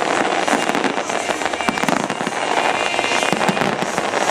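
A fireworks display going off in a dense barrage, with many pops and bangs overlapping without a break.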